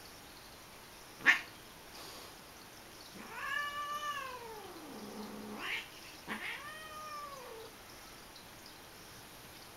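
A cat meowing while two cats play-fight: a long drawn-out call that rises and then falls, starting about three seconds in, then a shorter falling call. A single sharp knock about a second in is the loudest sound.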